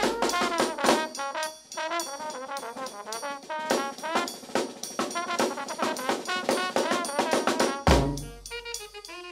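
Brass band playing: trumpet, trombone, saxophone and flute over sousaphone, snare drum and a bass drum with cymbal. A heavy bass drum hit lands near the end, after which the horns thin out.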